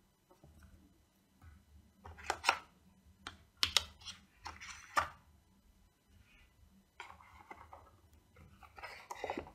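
Cardboard packaging being handled: the inserts and cable are set back into a small cardboard box, giving a few scattered sharp taps and clicks, then light rustling and sliding as the box is put together near the end.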